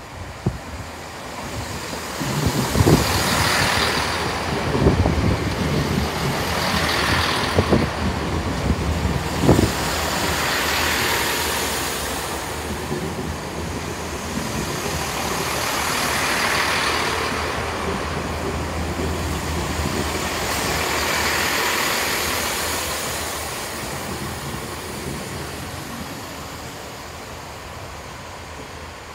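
Chiltern Railways Class 165 diesel multiple unit running past along the platform: a steady diesel engine drone, with sharp wheel knocks over the rail joints in the first ten seconds and a rushing noise that swells and fades about every five seconds as the carriages go by. The sound dies away near the end.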